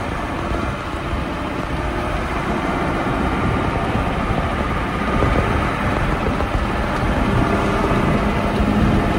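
Freshly overhauled diesel engine of a Mercedes-Benz 1417 truck running steadily under way, heard from inside the cab.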